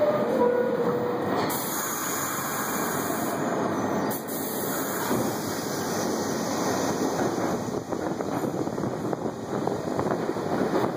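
R62A New York City Subway train pulling out of the station: a short two-note falling door chime at the very start, then the steady running noise of the cars and wheels as the train gets under way.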